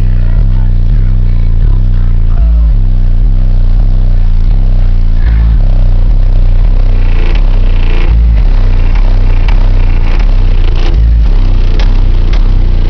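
Bass-heavy music played very loud through 18-inch car audio subwoofers, with deep bass notes changing every couple of seconds. Short rattling and clattering sounds from the vehicle run through it, louder in the second half.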